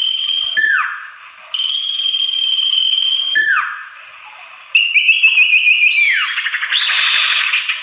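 Common iora (sirtu) calling: two long steady whistles, each ending in a quick falling slide, then about five seconds in a run of short rising notes, a falling glide and a buzzy trill. It is a lure call (suara pikat) played to draw wild ioras in.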